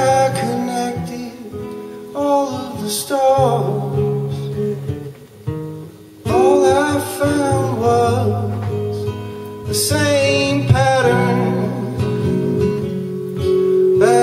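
A man singing in phrases while strumming an acoustic guitar, a live solo song.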